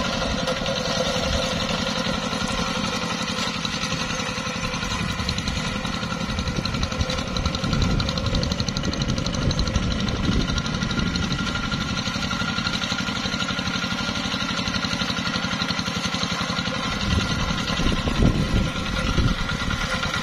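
Engine of a two-wheel hand tractor running steadily while it works a flooded rice paddy, with louder low rumbling surges about eight seconds in and again near the end.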